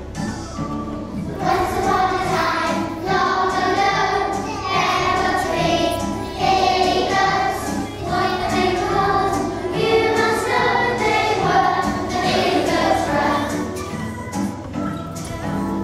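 A group of children singing a song together, with the singing getting fuller about a second and a half in.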